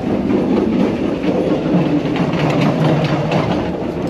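Running noise of a PeruRail Vistadome passenger train at about 40 km/h, heard from inside the carriage: a steady loud rumble with rattling and clacks from the wheels on the rails.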